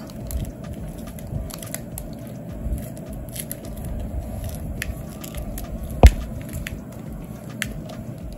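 Fingers pressing soft caramel candy dough into sugar granules in a plastic candy-kit tray: small crackles and clicks from the granules and the thin plastic tray, with one sharp knock about six seconds in.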